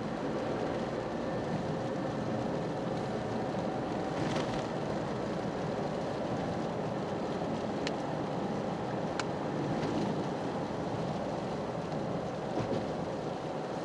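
Toyota GR Yaris driving at a steady pace: its turbocharged three-cylinder engine running under a continuous wash of road noise from studless winter tyres. Two faint ticks in the second half.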